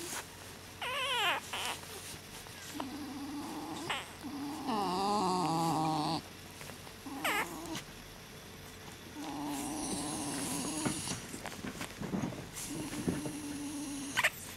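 Basenji puppy squeaking and whining while it suckles from its mother: several short high squeaks that slide down in pitch, between longer held whines.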